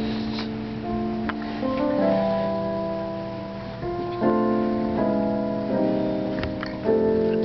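Keyboard playing slow, held chords that change every second or so, as background music during a communion service.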